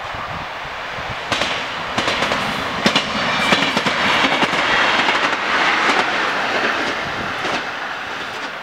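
Västtågen X12 electric multiple unit passing at speed: a rush of wheels on rail that swells to its loudest around the middle and then fades. Irregular sharp clacks from the wheels crossing rail joints sound over it.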